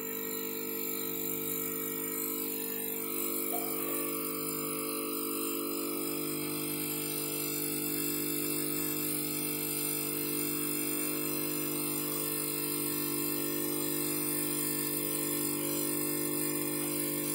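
A steady droning hum made of several held tones, unchanging throughout.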